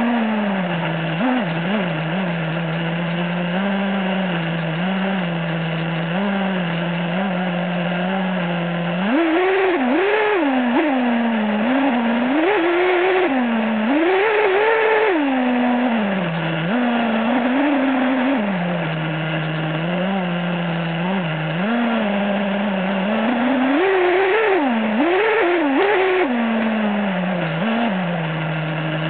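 Nitro two-stroke engine of an HPI Savage SS 4.6 RC monster truck, heard from a camera mounted on the truck. It runs at a steady low pitch, then revs up and down in repeated rises, about a third of the way in, around the middle, and again near the end.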